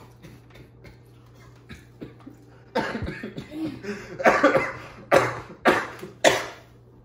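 A young man coughing hard into his fist, a run of about five coughs starting about three seconds in, just after eating a spicy hot fry.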